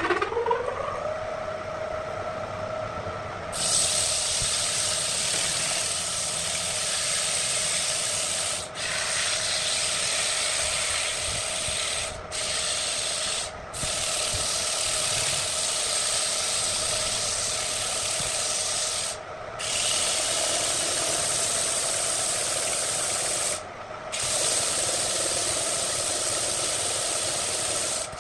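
Wood lathe motor spinning up with a rising whine, then running steadily. From about three and a half seconds in, a hand-held sanding pad is pressed against the spinning wooden bowl and makes a loud, even hiss. The hiss breaks off briefly five times as the pad is lifted.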